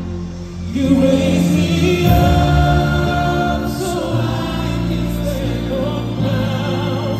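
Live concert performance of a slow pop ballad: men's voices singing in harmony over a sustained backing band, recorded from the audience. The voices come in about a second in over the held instrumental chords.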